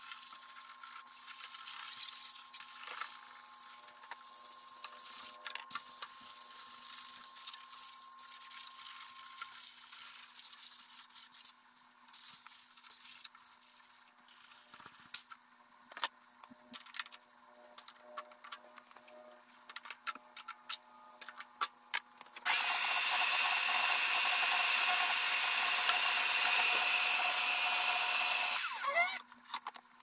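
Handling noise of rubbing and scattered light clicks. Then, about two-thirds of the way through, a small electric power tool with a high whine runs steadily for about six seconds and winds down with a gliding pitch as it stops.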